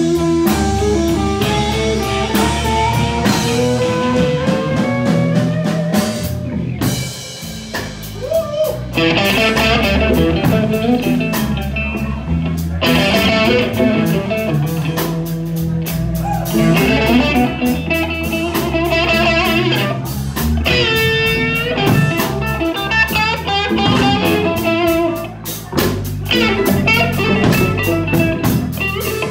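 A band playing blues: a guitar line with gliding, bent notes over bass and drum kit.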